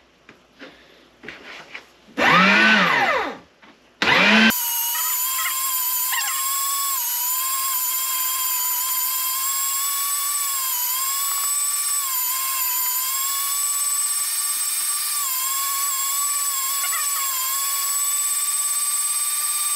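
Electric 575-watt meat grinder's motor running with a steady high whine as meat is pushed through it with the plunger, its pitch dipping briefly now and then under the load. The motor starts about four seconds in, after a short loud whir about two seconds in.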